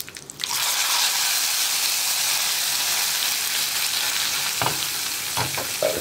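Hot oil with fried mustard seeds, fenugreek, dried red chillies and curry leaves poured into a yogurt curry: a sudden loud sizzle starts about half a second in and slowly dies down. A few short knocks come near the end.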